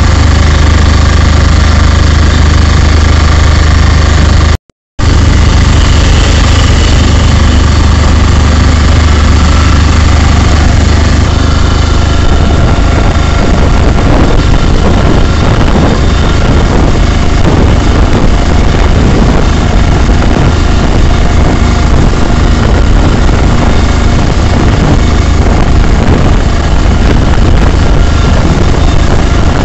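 Vehicle engine running steadily while driving, heard loud from inside the cab, with a strong low hum. The sound cuts out completely for a moment just under five seconds in, and the low hum changes around eleven seconds in.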